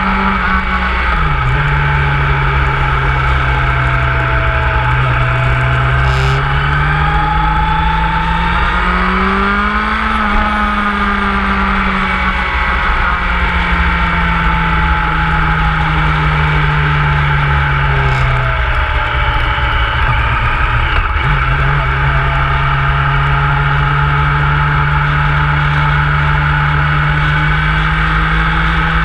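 Motorcycle engine running under way. Its pitch steps down about a second in, climbs slowly to a peak a third of the way through, drops again about two-thirds through and then holds steady, over a constant low rumble.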